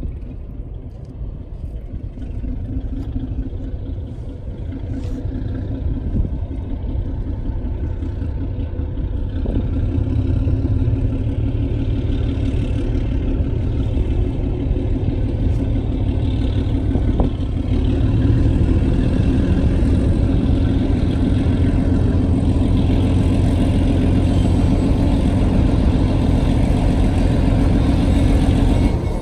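GE 70-ton diesel switcher locomotive's engine working as it approaches pulling freight cars, with a steady low engine note. It grows louder over the first ten seconds or so, then holds steady.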